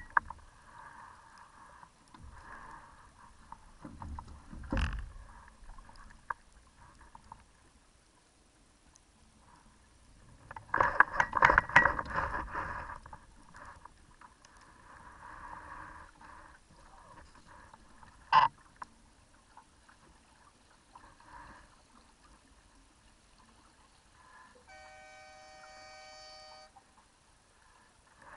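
Water lapping and splashing against a Laser sailing dinghy's hull, on and off, with a dull thump about five seconds in, a louder stretch of splashing and knocks around eleven to thirteen seconds, and a sharp click near eighteen seconds. Near the end a steady tone of several pitches is held for about two seconds.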